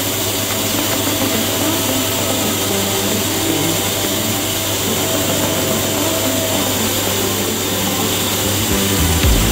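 Heckert CWK 1600 horizontal machining centre running: a steady whirring noise over a constant low hum.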